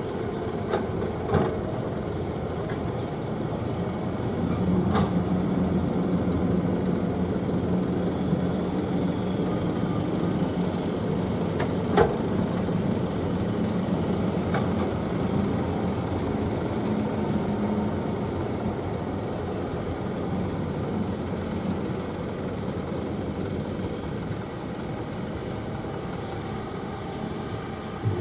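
Kobelco excavator's diesel engine running steadily, working harder with a deeper hum from about four seconds in until about eighteen seconds in, with a few sharp knocks, the sharpest about twelve seconds in.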